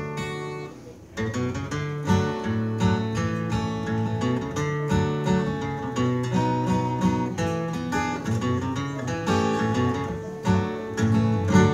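Solo acoustic guitar playing an instrumental introduction: picked bass notes and strummed chords in a steady rhythm.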